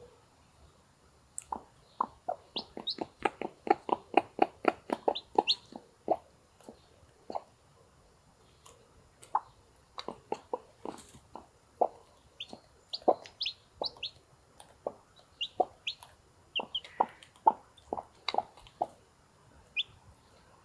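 Broody Brahma hen clucking in short low notes, in a fast run early on and then more spaced out, while her newly hatched chicks give short high peeps.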